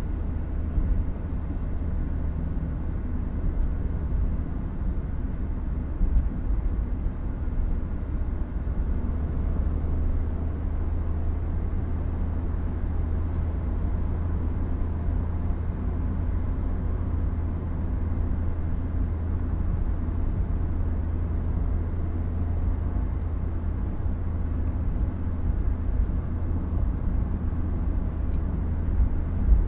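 Inside a moving car with the windows closed: a steady low rumble of engine and tyre noise.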